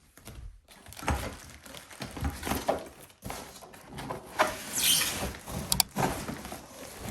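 Bike parts being lifted out of their shipping box: packaging rustling and scraping, with irregular knocks and a couple of sharp clicks.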